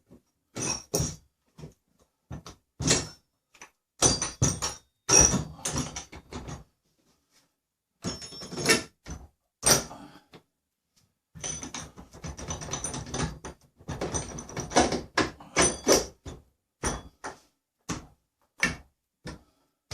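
Metal hardware being handled and fitted by hand: irregular knocks, clinks and short rattling runs of bolts, star washers and nuts against timber and each other, in clusters with pauses between.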